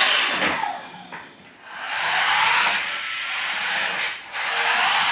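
Remote-control toy car's small electric motor and gears whirring. It fades out about a second in, starts again, and stops briefly once more shortly before the end.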